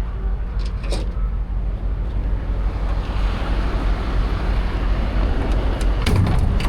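Steady low vehicle engine rumble mixed with wind noise on the microphone, a broad rushing noise swelling from about halfway through.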